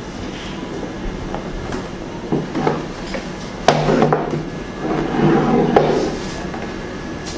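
Acrylic panels of a photo light box being handled and fitted together: scraping and knocking, with a sharp click about halfway through and another about two seconds later as the panels snap into place.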